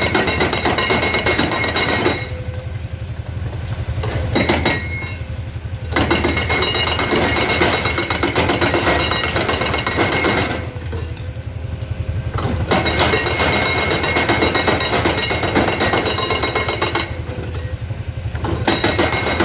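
Komatsu PC210 excavator's diesel engine running steadily while its bucket scrapes and clanks against rock trimming a cliff terrace. The metallic clatter comes in four spells of a few seconds each, with quieter stretches between where only the engine is heard.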